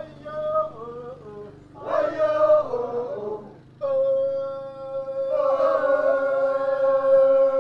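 Chanted singing: two short phrases with sliding pitch, then from about halfway a long held note, with more parts joining it a little later.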